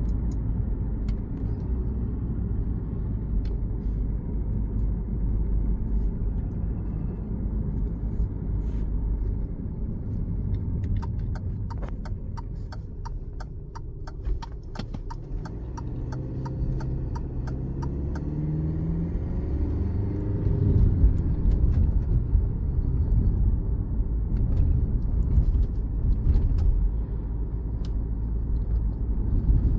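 Alfa Romeo Giulia 2.2 diesel four-cylinder engine idling cold, a steady rumble with a run of quick, even clicks about a third of the way in. Just past the middle the engine note rises briefly, then runs a little louder. This is the cold-engine knocking the owner is asking about, which comes back once the revs settle.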